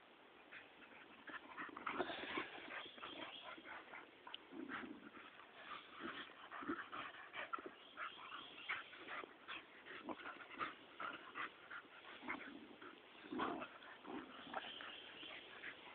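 A harrier hound and a pitbull mutt play-fighting: a busy stream of short scuffling sounds mixed with brief dog whines and low vocal noises, picking up about two seconds in.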